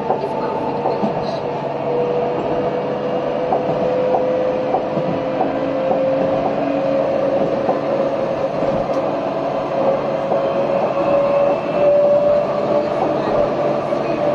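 Tram running on street track: a steady rolling rumble with the traction motor whine rising slowly in pitch as the tram gathers speed.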